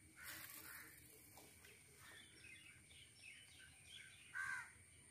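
Faint outdoor quiet with small birds chirping and a crow cawing once about four seconds in.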